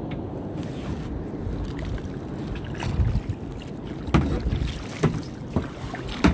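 Kayak being paddled at sea: a steady low wind rumble on the microphone, with sharp paddle knocks and splashes roughly once a second in the second half.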